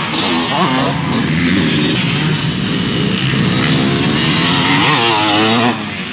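Motocross dirt bike engines revving hard and easing off, the pitch sweeping up and down as the bikes ride the dirt track, with more than one bike heard at once. There are marked rev sweeps about a second in and again about five seconds in.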